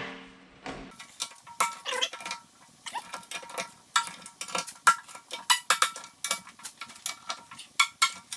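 Ratchet wrench clicking in short, uneven strokes with a metallic ring, snugging the bolts of a new bucket cutting edge.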